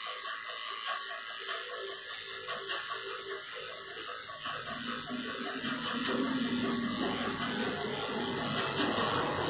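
Electric dog grooming clipper buzzing steadily as its blade trims a cocker spaniel's coat. The hum grows fuller and lower about halfway through.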